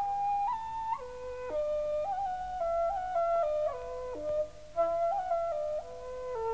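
Xiao, a Chinese vertical bamboo flute, playing a slow solo melody one note at a time, with small ornamental turns between some notes.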